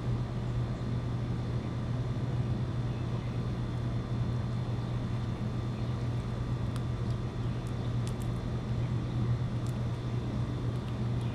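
Steady low mechanical hum, with faint steady high tones over it and a few faint short ticks in the second half.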